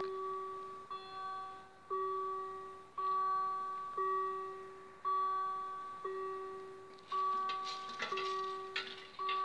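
Level-crossing warning bell ringing, one strike about every second, each ringing out and fading: the crossing is closed for an approaching train. A brief noisy rattle joins in about seven seconds in and lasts about two seconds.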